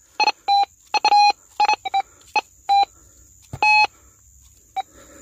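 Minelab metal detector beeping over a gold target as its coil is swept across the bank: a dozen or so short beeps at one steady mid pitch, coming in irregular quick runs. Near the end one beep is held longer, followed by a single short blip.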